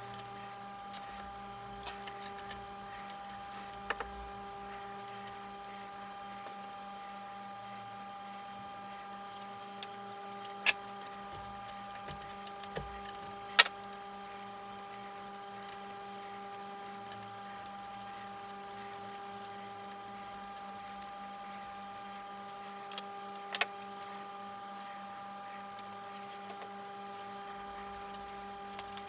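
A few sharp, isolated clinks of hand tools on metal parts during a motorcycle engine teardown, over a steady electrical hum.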